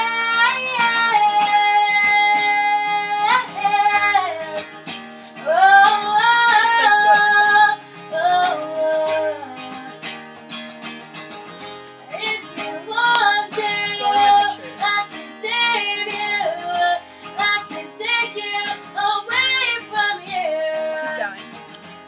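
Background music: a pop ballad with a female singer holding long, wavering notes in phrases over acoustic guitar.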